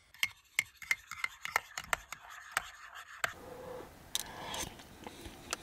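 A metal spoon clicking and scraping against a paper instant-porridge pot: a quick run of sharp taps for about three seconds, then softer scraping as porridge is spooned out.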